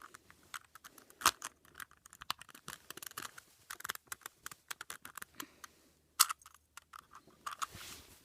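Plastic Rubik's Cube pieces clicking and scraping as the cube is handled and pieces are pushed back into place, a run of irregular small clicks with two sharper snaps, about a second in and about six seconds in.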